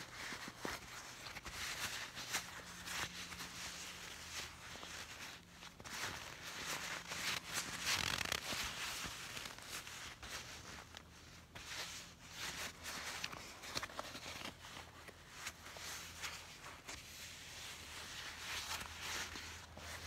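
A leather jacket being rubbed and squeezed by hand close to the microphone: continuous rustling with many small crackles, louder in stretches as the grip changes.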